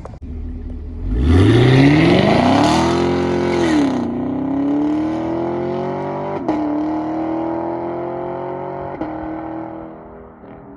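2021 Camaro SS's 6.2-litre LT1 V8 under full-throttle acceleration, the dual-mode exhaust valves open in Track mode. The engine note rises steeply about a second in, then drops and climbs again with quick upshifts at roughly 4, 6.5 and 9 seconds, and fades near the end.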